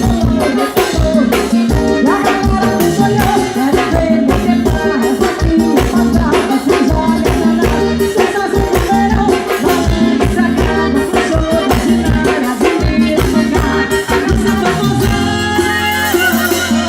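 Forró band music with a steady, driving beat, a shaker rattling along, and singing.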